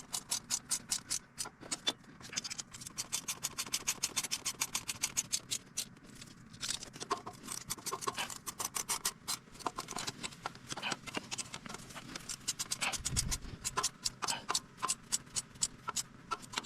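Hand socket ratchet clicking in quick runs of strokes with short pauses between, tightening exhaust header bolts.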